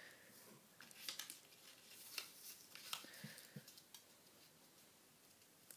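Faint rustling and crinkling of a sheet of paper being folded and creased by hand, with a few soft, crisp ticks between about one and four seconds in.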